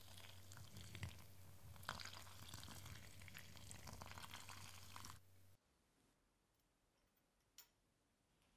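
Hot water pouring from a gooseneck kettle into the glass lower globe of a siphon coffee maker: a steady splashing stream with small drip-like clicks, cutting off abruptly about five seconds in.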